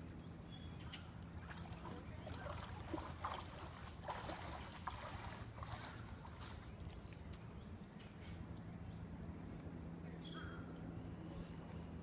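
Black bear wading through a shallow pond: faint splashing and sloshing of water, heaviest from about two to five seconds in, over a steady low hum. A thin high call comes in near the end.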